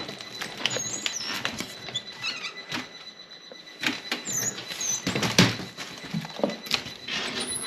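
A door being opened and things moved about: scattered knocks and clicks, with a few short high squeaks and a heavier knock about five seconds in.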